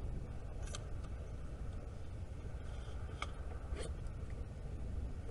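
Steady low outdoor rumble, with three brief sharp ticks about a second in, a little after three seconds and near four seconds.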